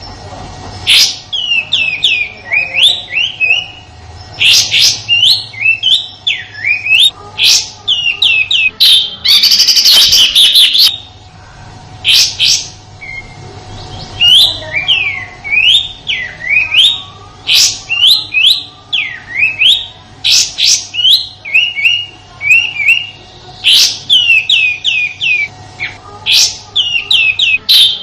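A kapas tembak bird giving its harsh, rapid 'tembakan' song: fast runs of sharp, falling chirps in phrases broken by short pauses, with a few louder, denser rattling bursts. A faint steady hum runs underneath.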